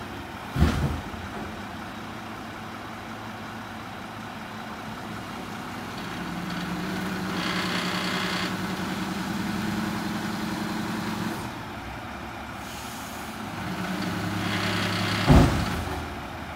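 Mack LR garbage truck's engine running at low revs, then running louder for about five seconds in the middle. A hiss rises through the middle of that stretch. A short, sharp, loud burst comes about half a second in and another near the end.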